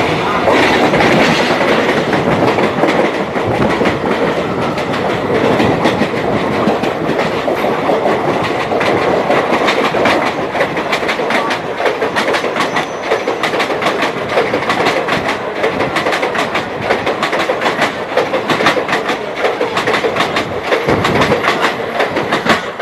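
Express train's passenger coaches running past at speed on the adjacent track, close by: a loud, continuous rumble of wheels on rail with rapid clickety-clack over the rail joints, easing slightly near the end.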